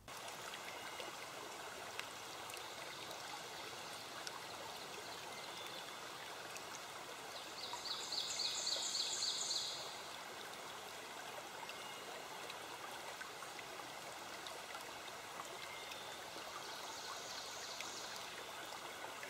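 Steady rush of running water like a stream, with a rapid series of high chirps about eight seconds in and again, fainter, near the end.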